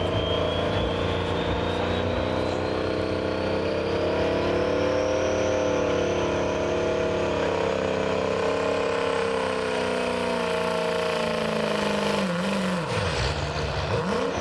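Turbo diesel pickup engine held at high revs at the start line of a truck pull, its turbocharger whine climbing slowly and steadily in pitch for about twelve seconds. Near the end the whine falls away and the engine note dips sharply.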